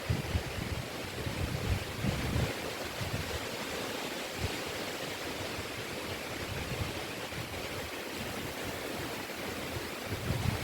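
Wind rushing steadily through trees, with low gusts buffeting the microphone at the start and again near the end.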